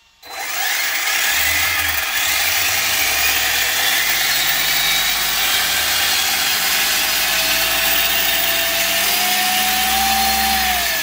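Arrma Typhon 6S buggy's brushless motor and drivetrain running under throttle, with the wheels spinning in place on the bench. It comes in suddenly at the start and holds steady and loud, a faint whine slowly rising in pitch.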